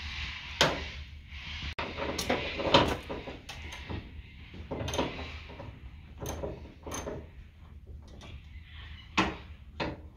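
Irregular knocks and clunks of car parts and tools being handled, with scraping and rustling in the first half; the loudest knock comes a little under three seconds in.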